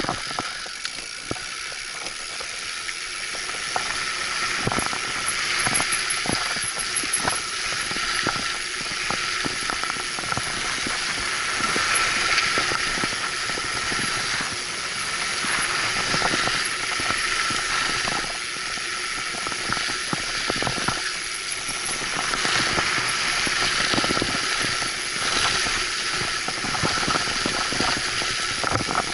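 Mountain bike rolling fast down a concrete path: a steady rushing hiss of wind over the handlebar-mounted microphone and tyre noise, with frequent small knocks and rattles from the bike over bumps.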